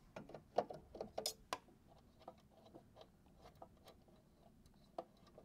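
Faint metallic clicks and taps of hands fitting a tubular arm onto an embroidery machine: a quick run of clicks in the first second and a half, then scattered small ticks, with one sharper click near the end.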